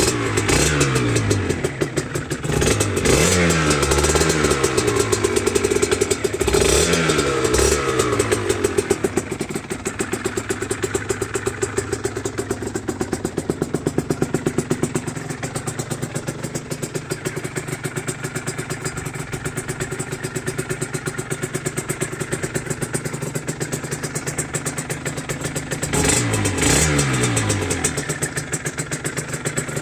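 1999 Aprilia RS125 single-cylinder two-stroke engine with an Arrow exhaust, freshly rebuilt, idling and blipped on the throttle four times: three quick revs in the first eight seconds and one near the end, the revs falling back to idle after each.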